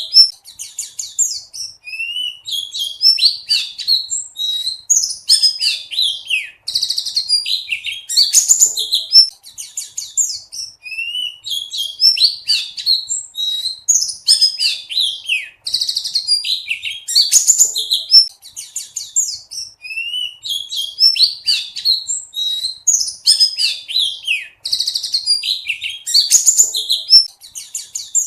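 Pleci buxtoni white-eye singing: a fast, high-pitched, unbroken twittering of chirps and trills. The same run of phrases comes round again about every nine seconds.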